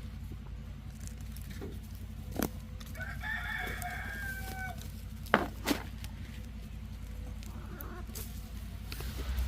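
A rooster crows once, a long call starting about three seconds in. A few sharp knocks come before and after it, over a steady low hum.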